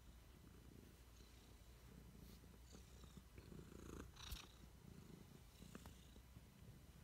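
A domestic cat purring faintly as it rubs against a person, with a short rustle of fur brushing the microphone about four seconds in.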